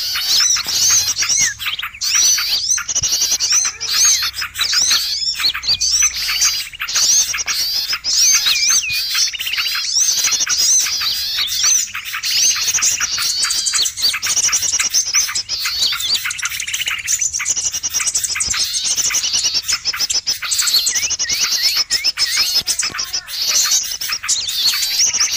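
A dense, busy chorus of many small songbirds chattering, chirping and trilling over one another without a break: a pikat lure recording that mixes the calls of small wild birds to draw them in.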